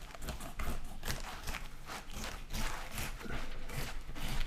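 Footsteps crunching in snow at a steady walking pace, about three steps a second.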